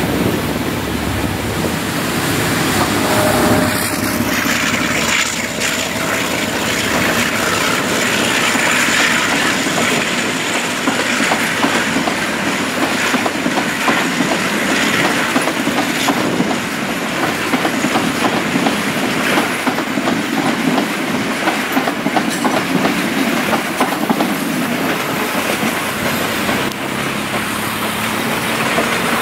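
Passenger train rolling through a junction: steel wheels clattering continuously over the points and rail joints, with a faint high wheel squeal on the curves.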